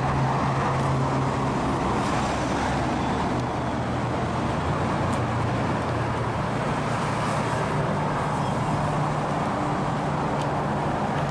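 A vehicle engine running steadily: a constant low hum over a steady wash of road and traffic noise.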